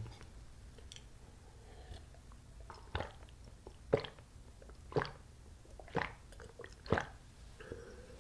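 A person gulping juice from a glass, with swallows coming about once a second, five in a row starting about three seconds in.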